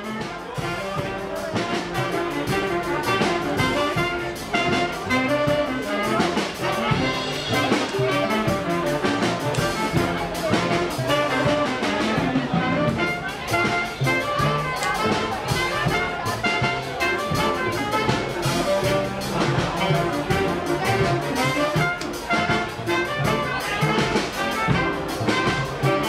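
A small band playing live: a saxophone section and trumpet over violin, double bass, drum kit and keyboard, with a steady drum beat.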